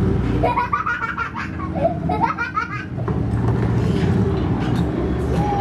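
A compact crawler excavator's diesel engine running steadily, with a person's voice laughing in short pulses from about half a second to three seconds in.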